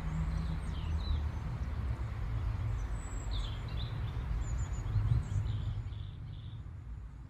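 Outdoor ambience: birds chirping in short scattered calls over a steady low rumble and hiss.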